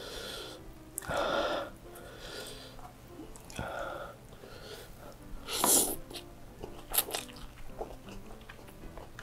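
Close-miked mouth sounds of eating chili-oil noodles: breathy slurps and sharp intakes of air between bites, the loudest slurp about five and a half seconds in, followed by a few sharp clicks.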